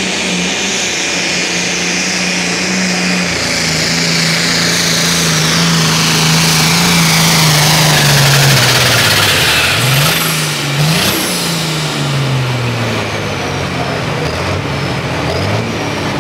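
Turbocharged pulling tractor's engine at full throttle, its note slowly sinking as the sled's load builds, with a high whine that falls over several seconds. About ten seconds in, the engine note dips and climbs back twice in quick succession, then drops as the engine winds down.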